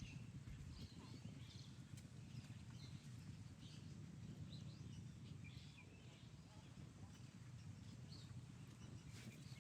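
Faint outdoor ambience: a steady low rumble with scattered short, high bird chirps.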